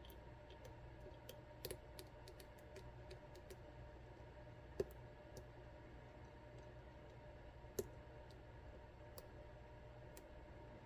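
Faint, scattered clicks of a lock pick and tension tool working inside an ASSA Twin 6000 high-security lock, setting its top pins (gins) into their countermilling, with two louder clicks a few seconds apart near the middle.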